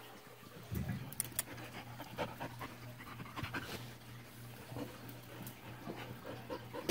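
Samoyed puppy panting in short irregular breaths close to the microphone, with rustling; a steady low hum comes in about a second in.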